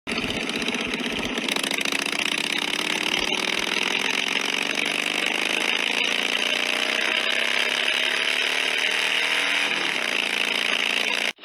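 A motor running continuously, its pitch rising slowly and steadily, then cutting off abruptly near the end.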